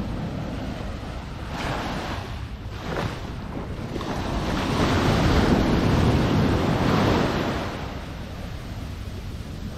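Waves washing in on the beach, one larger wave swelling up and falling away in the middle, over a steady low rumble of wind on the microphone.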